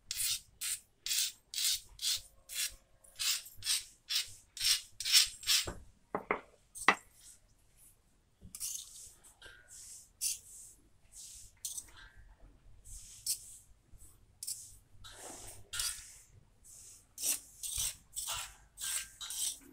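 Fingers scraping mashed potato off a stone silbatta grinding slab and roller. The short rasping strokes come about two a second at first, then a couple of sharp knocks about six to seven seconds in, then slower, sparser scrapes.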